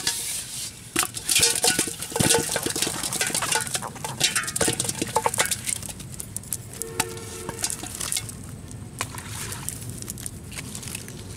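Rustling and crackling of a cast net being picked through by hand, with irregular clicks and clatters as fish are taken out and dropped into a metal pot. The clatter is busiest in the first half.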